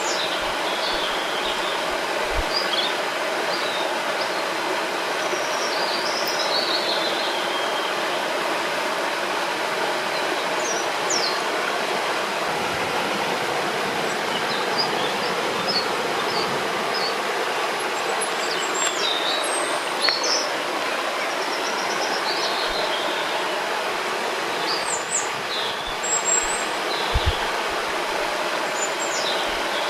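Steady rushing of a river or waterfall, with songbirds chirping and trilling now and then above the water.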